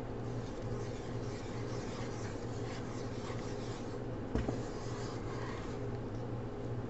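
Wooden spoon stirring a thick melting cheese sauce in a pan, rubbing and scraping against the bottom and sides, over a steady low hum. A single knock about four seconds in.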